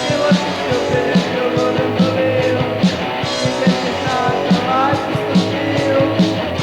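Hardcore punk band recording playing: full band with the drums hitting a steady beat.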